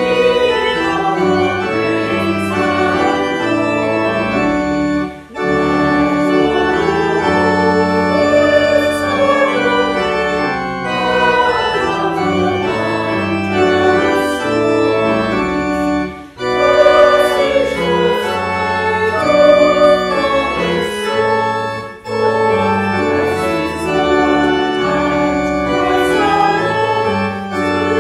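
Church organ playing a slow hymn-like piece in held chords, pausing briefly between phrases about 5, 16 and 22 seconds in.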